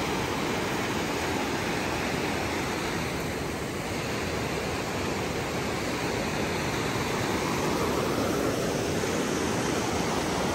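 Fast mountain river rushing over rocks in whitewater rapids, a steady, even rush of water.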